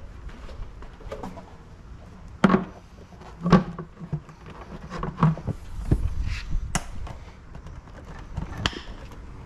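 Plastic top cowling of a Yamaha 40 hp four-stroke outboard being set onto the motor and pressed into place: a string of knocks and clunks, the two loudest about a second apart a few seconds in, with more spread through the rest.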